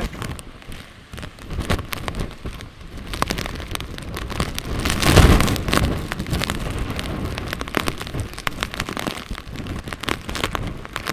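Hurricane-force wind and driving rain buffeting the microphone, with a dense patter of hits and a stronger gust about halfway through.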